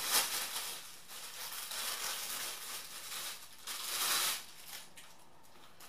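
Thin plastic packaging crinkling and rustling as it is handled and worked open. It comes in uneven bursts, loudest near the start and about four seconds in, and is quieter near the end.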